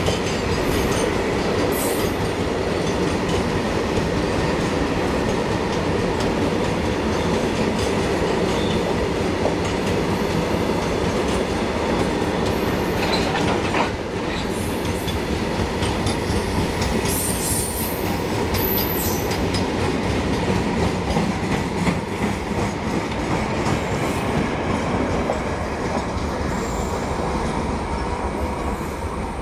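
Loaded BOXN open coal wagons of a freight train rolling past steadily, wheels clattering over the rail joints, with brief high-pitched wheel squeals now and then.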